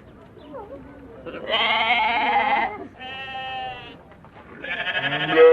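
Goats bleating: three separate calls, the first and last loud and wavering, the middle one quieter and shorter.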